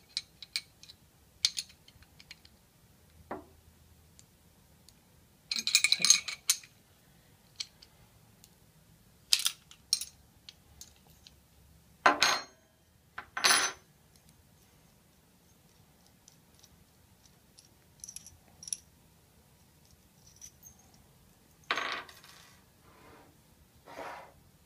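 Steel combination wrenches clinking against the actuator's stainless shaft and nut and being set down on a wooden table while the nut on the piston shaft is undone: scattered metallic clicks and clinks, a few louder, one with a brief ring.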